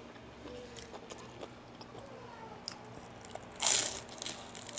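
A person taking one loud crunching bite of food about three and a half seconds in, followed by a few smaller chewing crunches; faint mouth and handling clicks come before it.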